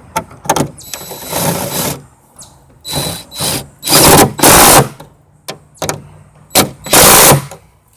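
Cordless drill run in several short bursts on the hood hinge bolts, with clicks in between; the loudest bursts come about four and seven seconds in.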